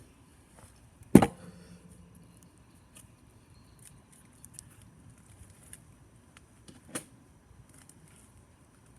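One loud, sharp knock about a second in that rings briefly, then a fainter click about seven seconds in, with light handling ticks between.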